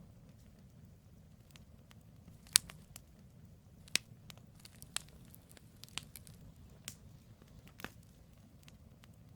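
Campfire of burning firewood crackling: sharp, irregular pops and snaps, the loudest about two and a half seconds in, over a steady low rumble.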